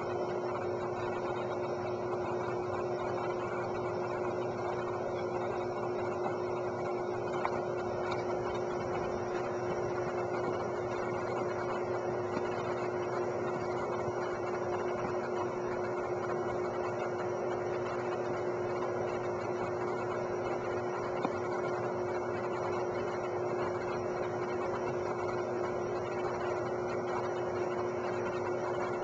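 Steady machine hum: one constant mid-low tone over an even hiss, unchanging in level.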